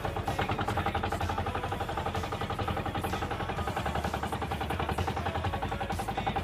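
Small engine of an outrigger fishing boat running with a rapid, even putter, with wind and rough-water noise around it.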